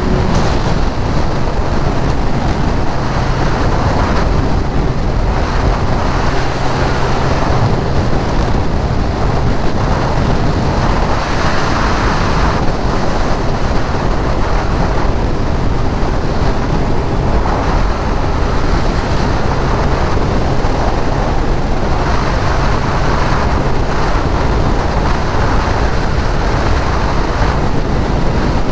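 Sport motorcycle cruising at a steady speed on the open road: an even engine note under heavy wind rush on the camera microphone.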